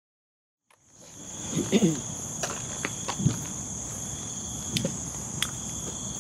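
Steady night-time insect chorus, a continuous high-pitched trill, fading in about a second in. Scattered clicks and rustles of footsteps in grass come through it.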